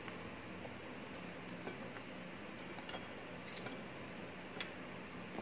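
Metal fork and spoon clinking and tapping against plates while eating: a dozen light, scattered clinks, the sharpest about four and a half seconds in.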